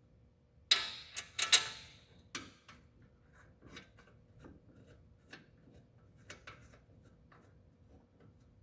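A few sharp clanks about a second in as a big brake kit caliper is handled and set back over the rotor, then scattered light ticks and taps of the parts being fitted.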